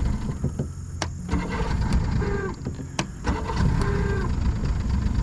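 1992 Force 90 hp two-stroke outboard motor running unevenly just after being started, a rough low rumble, with two sharp clicks about one and three seconds in. Its choke solenoid doesn't work, so it is being choked by hand.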